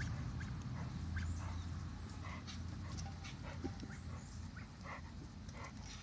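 Scattered short, high-pitched calls from backyard animals, some a few tenths of a second apart, over a steady low rumble that fades a little after the first couple of seconds.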